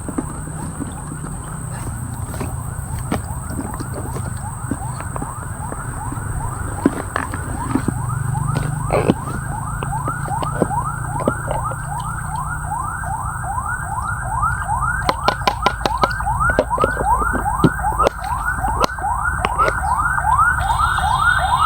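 A calling insect, cicada-like, giving a siren-like rising chirp over and over, about two to three times a second, growing louder. Under it runs a steady high-pitched insect hiss, with scattered small clicks and taps.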